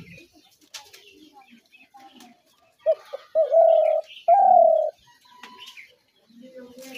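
Spotted dove cooing: one phrase of two short notes followed by two longer coos, starting about three seconds in. Faint chirps sound around it.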